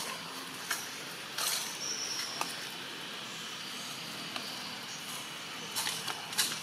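Baby long-tailed macaque suckling at its mother: about half a dozen short, wet smacking clicks scattered over a steady background hiss. A brief high chirp comes about two seconds in.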